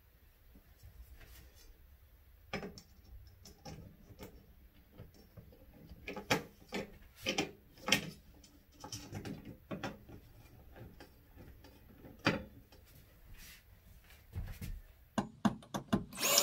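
Scattered light clicks, taps and knocks as a mirror-mounting bracket and its screws are handled and held against the wall. A cordless drill starts driving a screw right at the end.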